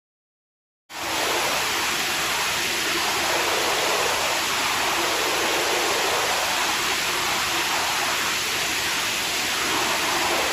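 F-22 Raptor's Pratt & Whitney F119 turbofan running on a ground test stand with its afterburner lit: a loud, steady jet roar. It cuts in suddenly about a second in after a moment of silence.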